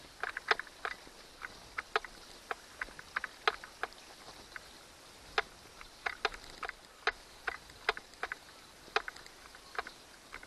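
Irregular light clicks and taps, two or three a second and unevenly spaced, from gloved hands handling wires, cable ends and plastic connectors; no engine is running.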